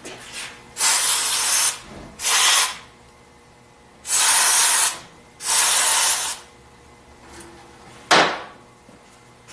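Aerosol brake cleaner sprayed in four hissing bursts, each half a second to a second long, to flush grit out of a piston's wrist pin bore. One sharp knock follows near the end.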